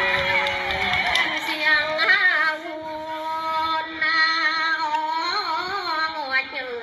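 A woman singing a slow celebratory festival song in long held notes that bend and waver in pitch.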